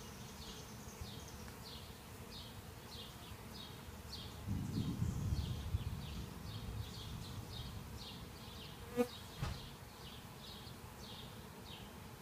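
Honeybees buzzing around an open hive during a package installation, the buzz swelling louder for a second or two about four and a half seconds in. A high chirping repeats about two or three times a second throughout, and a short sharp knock comes about nine seconds in.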